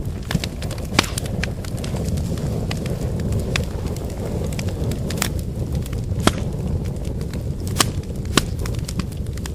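Firewood fire burning with a steady low rush of flame and scattered sharp crackles and pops from the wood, the loudest about a second in and several more in the second half.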